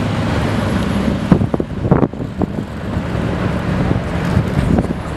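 Aston Martin Vantage driving past in street traffic, its engine and exhaust making a steady low drone, with a few sharp knocks around one and a half to two seconds in.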